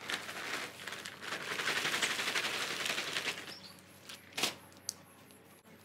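Lawn top dressing pouring out of a bag into a hole: a dense, gritty hiss of fine crackling that tails off about three and a half seconds in, followed by two short sharp knocks.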